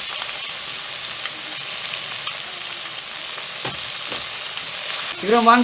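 Chickpeas in onion-tomato masala sizzling steadily in hot oil in a pan as pickle (achaar) is added, with a few light scrapes of a wooden spatula.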